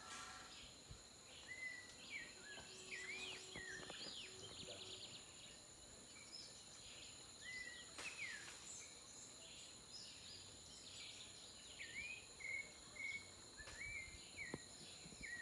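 Faint insect drone of several steady high tones, with frequent short bird chirps and whistles, some rising and some falling, scattered throughout.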